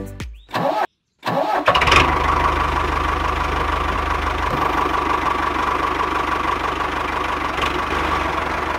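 An engine starts up about two seconds in and then runs steadily, with a fast, even chugging and a constant whine.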